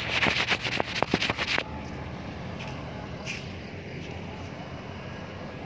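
Low, steady rumble of road traffic. It opens with a rapid run of sharp clicks lasting about a second and a half.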